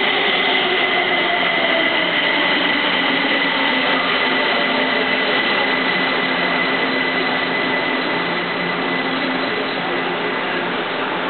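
Kaohsiung Metro electric train braking into an underground station: a steady rush of wheels and running gear, with motor whine falling in pitch over the first few seconds and a high steady tone that fades out about two-thirds through as the train slows to a stop.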